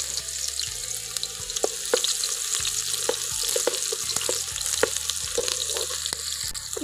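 Chopped onions sizzling in hot oil in a metal pot, stirred with a wooden spatula that knocks and scrapes against the pot again and again.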